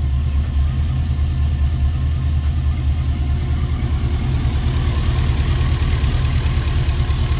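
GM LS V8 engine idling steadily and evenly, no longer skipping: the misfire was cured by replacing the bad fuel injectors on one bank.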